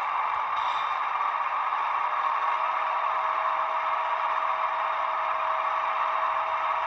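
Sound decoder of a ScaleTrains Tier 4 GEVO model locomotive playing its diesel engine sound with the throttle run up in drive hold, so the engine sound is revved while the model stays still: a steady running drone from the small onboard speaker, with a steady whine joining about two seconds in.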